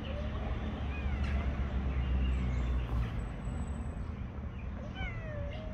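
Male cats giving a few low, drawn-out threat yowls that waver and slide down in pitch, the clearest one near the end: the warning calls of two tomcats squaring up to fight. A steady low rumble sits underneath.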